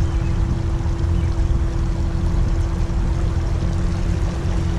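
Ram pickup truck driving slowly through about six inches of floodwater: water washing and sloshing around the tyres over a steady low rumble, with a faint steady hum.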